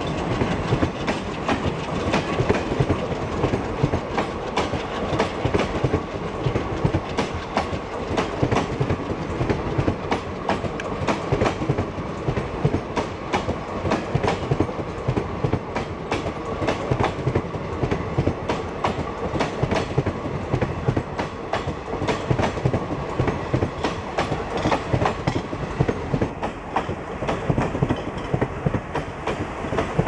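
Indian Railways passenger coaches rolling past at close range, their wheels clattering over the rail joints in a steady, unbroken clickety-clack.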